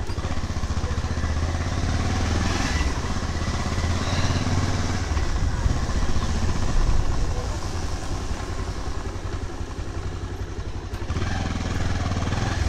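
Motorcycle engine running steadily while the bike is ridden, getting a little louder near the end.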